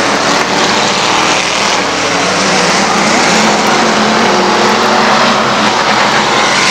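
Street stock race cars running on a dirt oval: a loud, steady drone of several engines at once.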